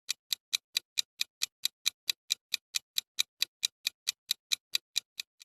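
Countdown-timer clock ticking sound effect: a steady run of sharp ticks, about four or five a second, that stops near the end.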